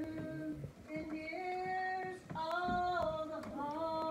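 A woman singing solo into a microphone, holding long notes that step up and down between pitches, with short breaths between phrases.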